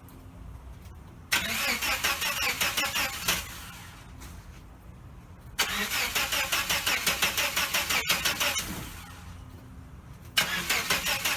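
1989 Chevrolet S10 Blazer engine being cranked over by the starter three times, each burst a few seconds of rapid, even pulses, without the engine catching: a no-start.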